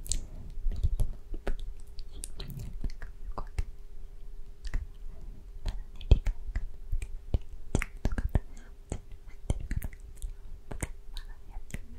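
Close-miked ASMR mouth sounds: unintelligible whispering broken by many sharp, wet mouth clicks and lip smacks at irregular intervals.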